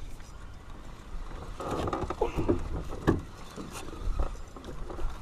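A few sharp knocks and a short stretch of rustling over a low steady rumble.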